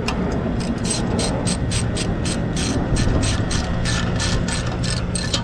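Hand socket ratchet clicking steadily, about four clicks a second, as it turns a bolt tight on a steel wall-mount bracket.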